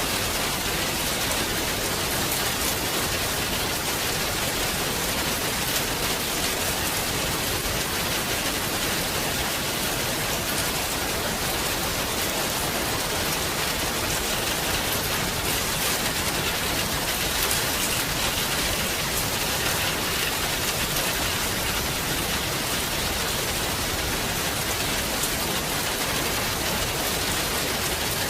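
Heavy rain falling steadily, a dense even hiss with the patter of drops on surfaces.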